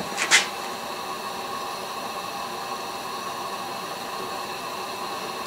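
Steady hissing whir of shop equipment, with one short clatter about a third of a second in, while molten metal is poured from a ladle into a clamped aluminium flywheel mold; the pour itself makes no distinct sound.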